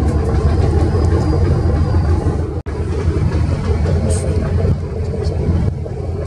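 Steady low rumble of a passenger ship's engines under way, broken once for a moment about two and a half seconds in.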